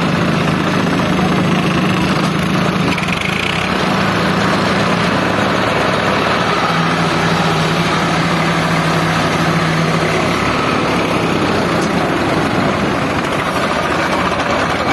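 Steady rush of surf breaking on the beach, with an engine's low steady hum underneath that drops out about ten seconds in.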